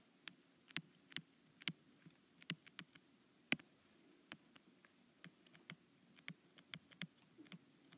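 Stylus tapping and clicking on an iPad's glass screen during handwriting: irregular sharp taps, a few a second.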